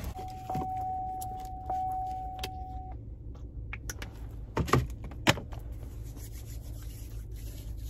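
A car's warning chime sounds as one steady tone for almost three seconds, with a few light clicks over it. A little past the middle come two sharp knocks about half a second apart, over a low steady hum.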